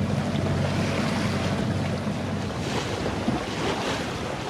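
Wind buffeting the microphone over the rush of water along the hull of a sailing yacht under way. A low steady hum underlies the first two seconds, then fades.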